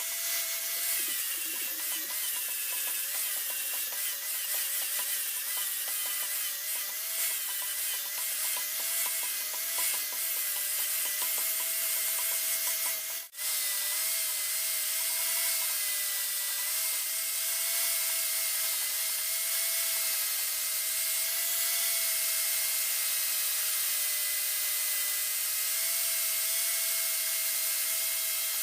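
Powered abrasive tool grinding steel: a steady motor whine under an even hiss of abrasion. It breaks off sharply for a moment about 13 seconds in, then carries on unchanged.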